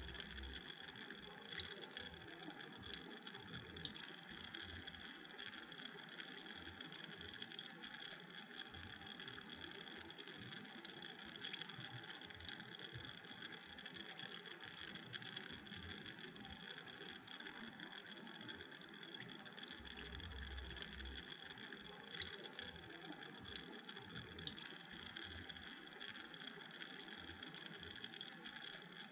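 Carbonated drink fizzing: a steady, dense crackle of tiny bubbles bursting at the surface.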